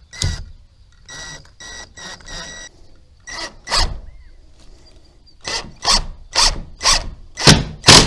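Cordless drill/driver driving a screw through a plastic mounting bracket into a wooden door, run in about a dozen short spurts of the trigger with a whine in each. The last six spurts, about half a second apart, are the loudest.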